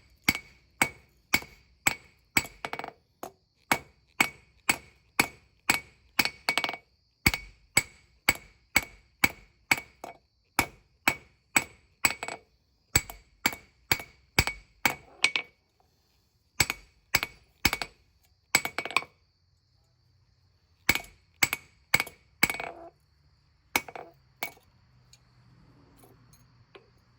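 Hand hammer striking hot spring steel on an anvil to draw out a knife tang: steady blows about two to three a second, each with a bright anvil ring, breaking off about fifteen seconds in, then a few scattered blows and pauses.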